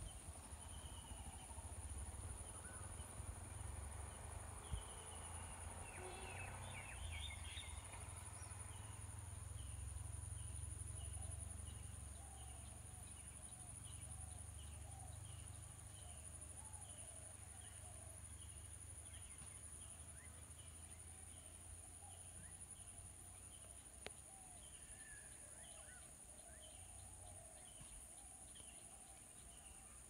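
Birds calling in a wet meadow. A cluster of calls comes about a quarter of the way in, then a steady series of short high chirps, about one and a half a second, runs on with lower calls among them. Under it all is a steady high insect drone and a low wind rumble.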